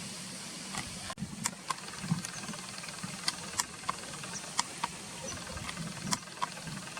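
Steady rushing outdoor background noise with about ten short, sharp ticks scattered through it.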